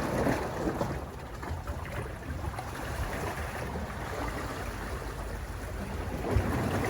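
Ocean waves washing against a rocky shore, a steady surging rush that swells louder near the end, with wind buffeting the microphone.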